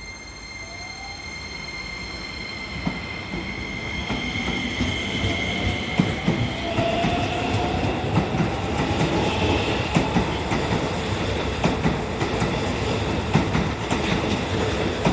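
Keisei 3100-series electric train pulling away from a station and gathering speed. A motor whine rises steadily in pitch while the wheels' clicking over rail joints grows louder and more frequent.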